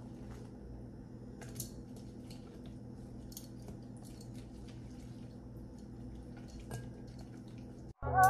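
Faint wet dabbing and light clicks of a silicone basting brush working sauce in a glass bowl and onto sauced chicken wings, over a steady low hum. Loud music starts abruptly near the end.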